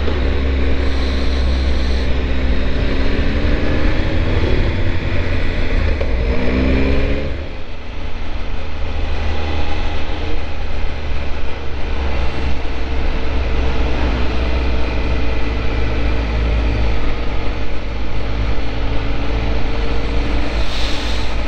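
Triumph Tiger 1200 motorcycle's three-cylinder engine under way, its pitch rising for the first seven seconds or so and then dropping away abruptly, followed by steadier running. Heavy wind noise on the microphone from riding with a lowered screen.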